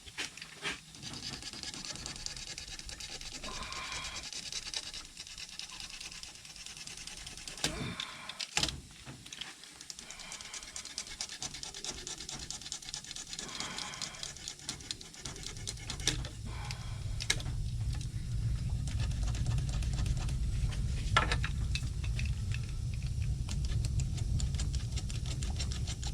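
Scratchy rasping and scattered sharp clicks as old nerf-bar nets are worked loose and cut off. A steady low hum comes in about halfway through.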